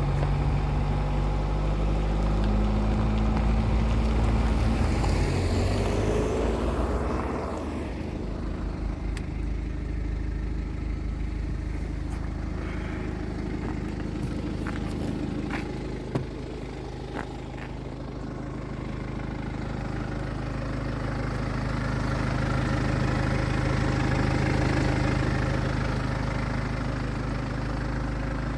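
BMW 420d's B47 four-cylinder diesel engine running, its speed shifting in the first several seconds before settling to a steady idle, with a few sharp clicks around the middle. The engine is warming up, when its timing chain noise is clearly audible.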